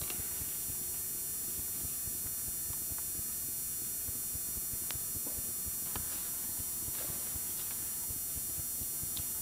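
Steady hiss and hum of a camcorder's sound track in a quiet room, with a few faint ticks scattered through.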